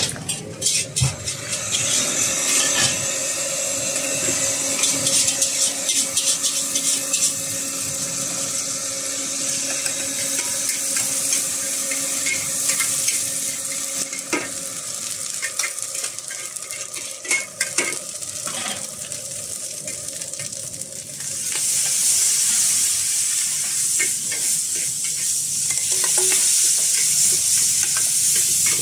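Food sizzling in hot oil in a wok while a metal ladle scrapes and clanks against the pan. The sizzling grows louder about three quarters of the way through.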